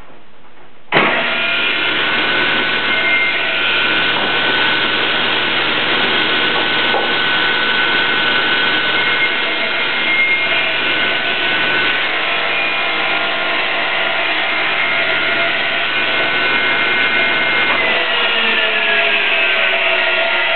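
Table saw starting up suddenly about a second in and running steadily at speed. Near the end the motor is switched off and its pitch falls slowly as the blade coasts down.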